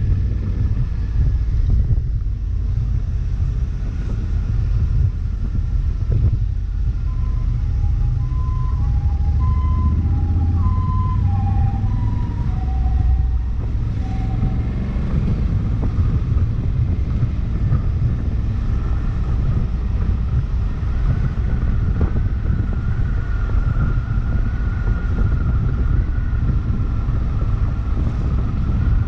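Riding noise of a Honda CRF1100L Africa Twin, a steady low rumble of the parallel-twin engine and wind. From about 7 to 14 seconds a two-tone hi-lo emergency-vehicle siren alternates over it and drops slightly in pitch near its end.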